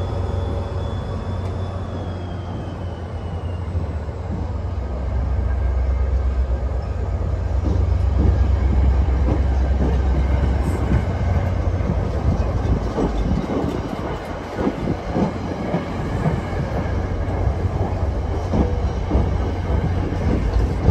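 Passenger train of coaches rolling past close by behind a diesel locomotive: a low engine drone that fades after about twelve seconds, then wheels clattering and knocking over the rail joints as the coaches go by.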